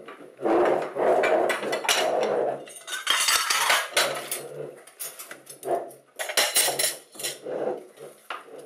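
Ceramic dinner plates and cutlery clattering as they are gathered and stacked on a glass-topped table: a busy run of sharp clinks mixed with louder, duller knocks and rubs.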